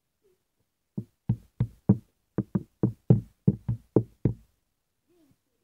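A quick run of about a dozen dull knocks, three or four a second, starting about a second in and stopping after about four and a half seconds.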